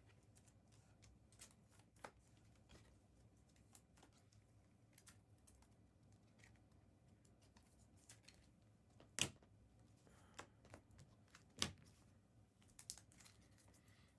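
Quiet, scattered clicks and soft rustles of trading cards and card packs being handled, with two sharper clicks about nine and eleven and a half seconds in.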